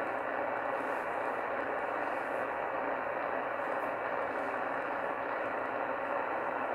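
Steady hiss of static from a shortwave receiver's speaker, tuned to CB channel 38 (27.385 MHz) in lower sideband, with no voice coming through the noise.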